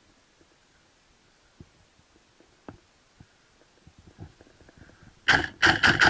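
Tokyo Marui M4 MWS gas blowback airsoft rifle firing a quick string of about four shots near the end, each a sharp crack of gas and cycling bolt. Before that there are only a few faint small knocks.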